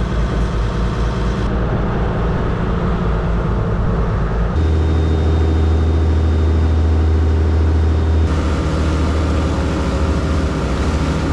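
Motor boat's engine running steadily under way, a loud low hum with water rushing along the hull. The engine note shifts abruptly a couple of times.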